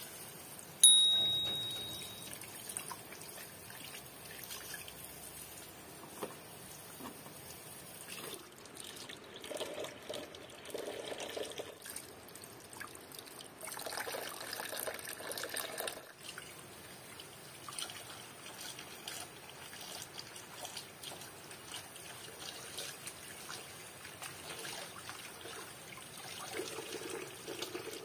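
Thin stream of water from an outdoor tap splashing into a metal pot of water as lettuce and red cabbage leaves are rinsed under it, with uneven splashing as the leaves are handled. About a second in, a sharp metallic clink rings out and fades over a second or so.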